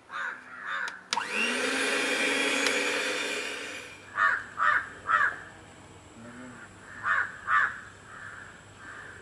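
Electric hand mixer whipping thick ground urad dal batter to make it frothy: the motor spins up with a rising whine about a second in, runs steadily for about three seconds, then dies away. Crows then caw several times in two short groups.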